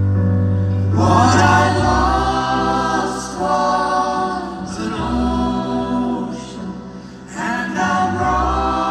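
Live band playing a slow ballad, with layered wordless vocal harmonies held in long phrases over a low bass and keyboard bed; the voices come in about a second in and again after a brief dip near the end.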